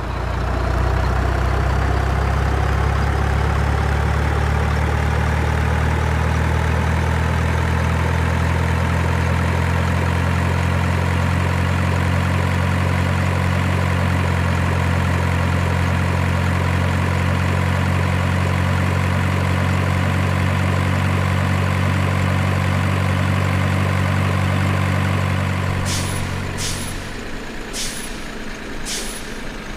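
Truck engine sound running steadily with a low drone and a slowly rising whine, cutting out a little before the end. It is followed by short sharp bursts of noise about once a second.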